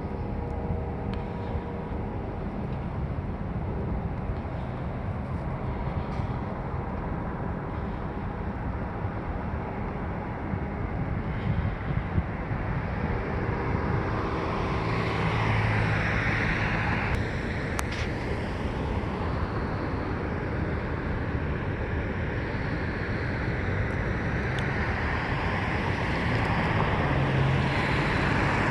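Road traffic: vehicles passing on the street over a steady low rumble, one swelling past about halfway through and another building near the end.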